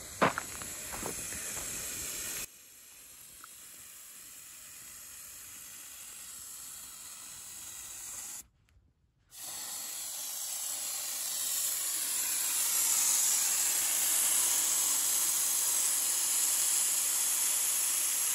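Air hissing steadily out of a Jeep Gladiator's off-road tyre through a dial-gauge tyre deflator on the valve stem, as the tyre is aired down for a sandy four-wheel-drive trail. The hiss cuts out for under a second about eight seconds in, then comes back louder.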